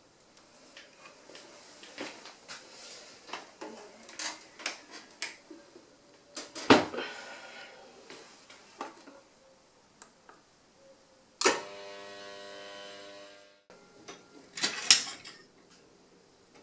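Handling an electric glass kiln: scattered clicks and knocks as its lid is lifted and its controller worked, with one loud clunk about seven seconds in. A steady pitched tone follows from about eleven seconds and cuts off abruptly, then a brief cluster of sharp clicks.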